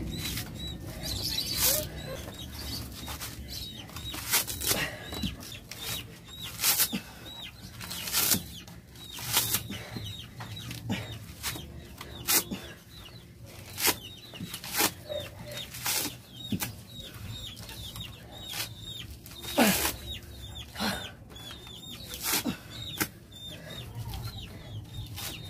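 Coconut husk being torn off by bare hands: irregular sharp rips and cracks as tough fibrous strips are pried and pulled from the nut, the husk clinging hard where its fibres hold. A small high chirp repeats about twice a second behind it.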